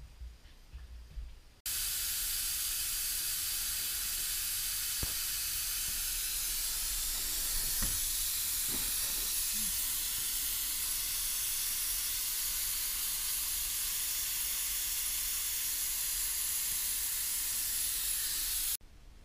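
A loud, steady hiss that starts abruptly about two seconds in and cuts off just before the end, with a few faint knocks around the middle.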